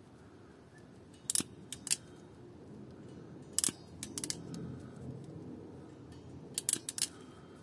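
Small sharp clicks in three short clusters, from hand work on a car door wiring loom and its plastic connector, over a faint steady background hum.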